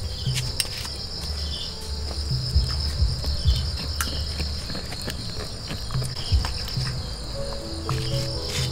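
Crickets chirping steadily, with a scatter of short knocks as a metal spoon and a bamboo strainer are worked in a pot of boiling water.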